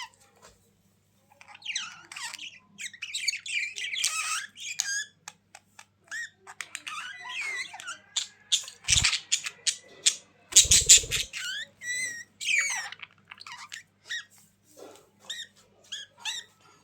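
Budgerigars chattering and warbling: a rapid, varied stream of chirps, clicks and short squawks. A couple of brief low thumps fall about halfway through.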